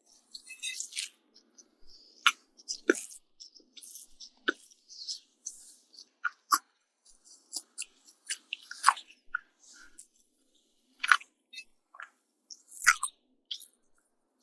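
Close-miked chewing of pancake with honey and bacon: irregular wet mouth clicks and smacks with occasional crisp crunches, several sharper ones standing out.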